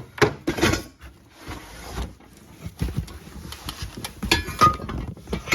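A heavy cardboard box being pulled down and handled, with knocks and rustling near the start, then its hard contents knocking and clinking against each other, one short ringing clink about four and a half seconds in.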